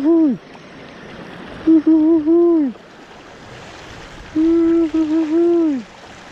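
Spinning reel's drag buzzing as a hooked fish pulls line off the spool, in three runs. Each run holds a steady pitch and then slides down as the spool slows, over the wash of sea water on rocks.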